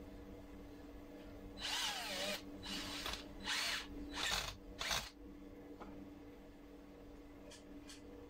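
Cordless drill/driver run in about five short trigger bursts over some three seconds, starting about a second and a half in, as it drives a screw through a floating-shelf bracket into a concrete wall. The motor whine drops in pitch during the first burst.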